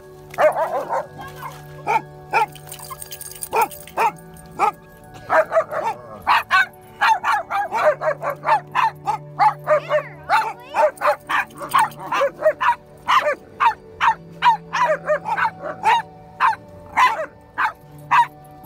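A German Shepherd-type dog barking over and over in short barks, a few at first and then a steady run of two or three a second.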